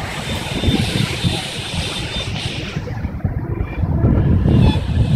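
Sea wind buffeting the phone's microphone over the wash of surf breaking on a sandy beach; the hiss of the surf drops off for a moment a little past halfway.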